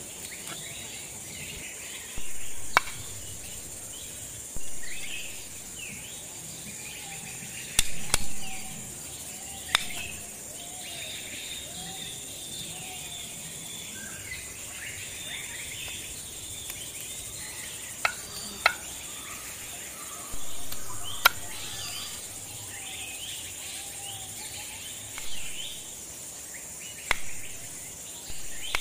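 Heavy kitchen knife chopping fish on a wooden cutting board: sharp knocks at irregular intervals, some in quick pairs. Under them, a steady drone of insects and bird calls.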